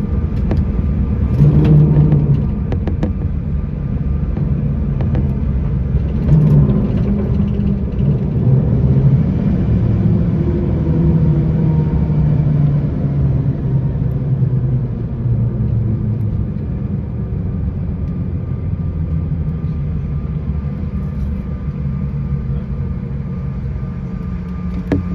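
Airliner cabin noise during landing: a loud low rumble and engine drone whose pitch shifts, with a few sharp clunks about two and six seconds in, settling to a steadier drone.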